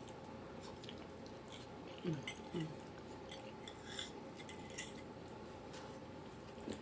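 Scattered light clicks and clinks of utensils against dishes while eating. Two brief murmurs from a person a little after two seconds in.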